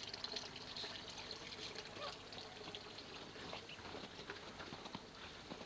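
Faint, steady trickle of water in a small garden pond kept open for ducks, with small ticks scattered through it.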